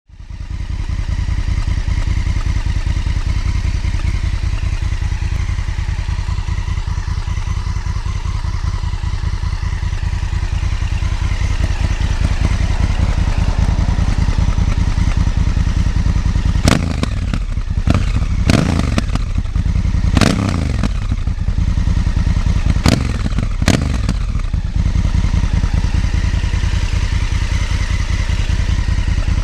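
Honda CRF1000L Africa Twin's parallel-twin engine idling through a Leovince LV One slip-on exhaust, with a run of about five quick throttle blips around the middle.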